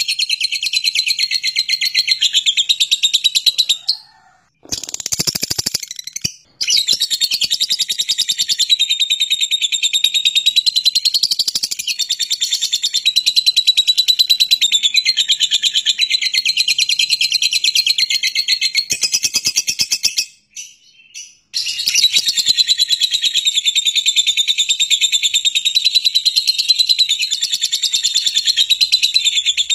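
Fischer's lovebird singing its long 'ngekek' chatter: a fast, unbroken run of high, shrill repeated notes lasting many seconds at a time, with a few short breaks. A brief burst of noise comes about five seconds in.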